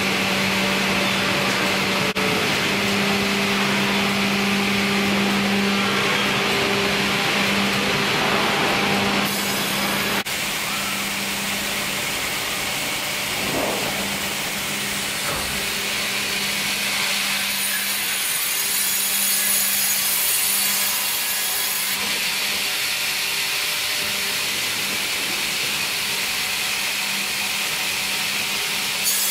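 Fimaksan band sawmill line running: the Fi.100 band saw, log conveyors and hydraulic log carriage. A steady motor hum runs under the first ten seconds, and the sound changes abruptly about nine seconds in and again about 22 seconds in.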